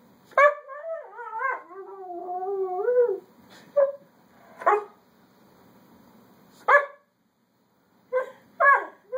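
A dog vocalizing: one long, wavering howl-like whine lasting nearly three seconds and sliding down in pitch, then five short yelps spaced a second or two apart, the last two close together.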